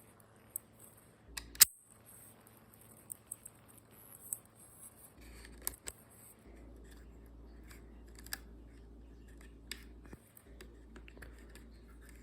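Scattered small sharp clicks and snaps, with one louder snap about one and a half seconds in, over a faint low hum that comes in partway through.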